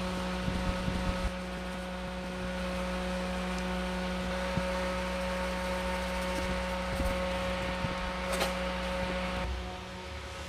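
Small clip-base desk fans running: a steady motor hum with the whirr of moving air, and light rustling of shredded paper blown about. The hum drops quieter near the end.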